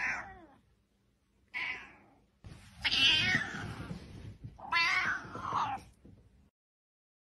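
Grey tabby cat meowing four times, the first two short and the last two longer, while it is being petted.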